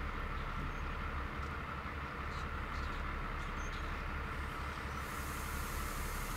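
Diesel locomotive engine running steadily: a low, pulsing hum with a constant mid-pitched whine over it, and a faint hiss joining about five seconds in.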